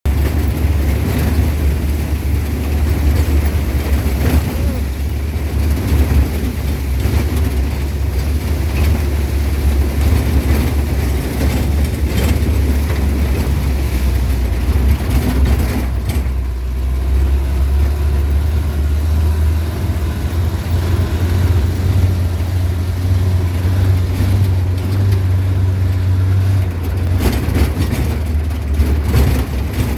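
A jeep driving along, its engine and tyres making a steady, loud, low rumble.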